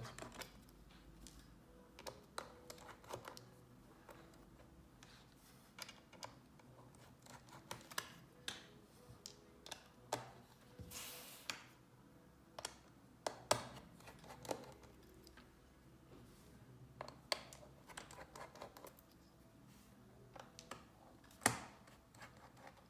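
Scattered light clicks and taps of a small screwdriver working the tiny bottom-case screws of a MacBook Air and the screws being set down one by one, with a short scrape about eleven seconds in.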